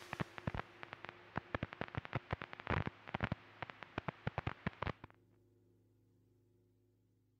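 Uneven crackling clicks, several a second, over a faint low hum. The clicks stop about five seconds in and the hum fades out.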